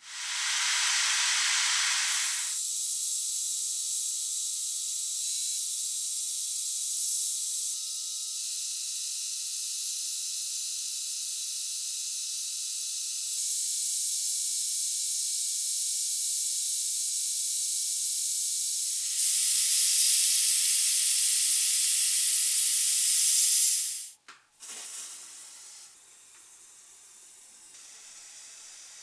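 Sandblaster blasting with compressed air: a loud steady hiss that starts abruptly, shifts slightly in tone a few times and cuts off after about 24 seconds, followed by fainter handling noises.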